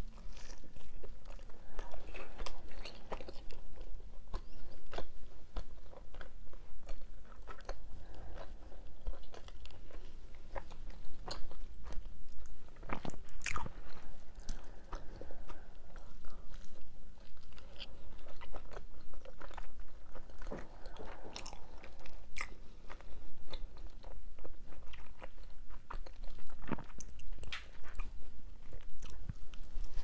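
A person biting into and chewing a mini cheese pizza close to a clip-on microphone, with irregular crisp crunches of the crust between chews; the loudest crunch comes about halfway through.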